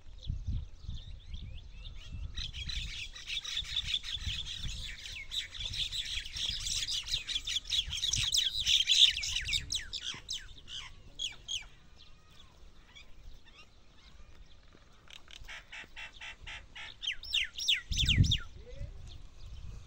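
Small birds chirping in a dense, rapid chatter for several seconds, then a second shorter burst near the end. Under it, low rustling and thuds from a camel browsing on tree branches.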